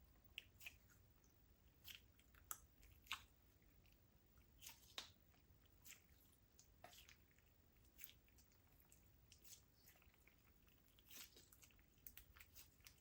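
Slime being mixed, giving faint, irregular sticky clicks and small pops.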